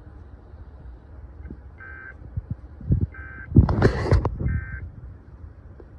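Emergency Alert System SAME header data bursts: three short, identical bursts of two-tone digital warbling about a second apart, signalling the start of a new alert, here a severe thunderstorm warning. A louder, rough burst of noise comes between the second and third bursts, over a low background rumble.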